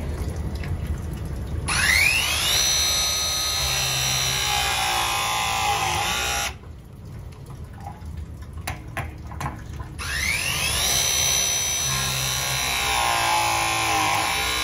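Milwaukee M18 Force Logic press tool making two presses, crimping press fittings onto a water heater's cold and hot connections. Each press is a motor whine that rises, holds for a few seconds and then cuts off sharply, with a few clicks in between as the jaws are moved to the second fitting.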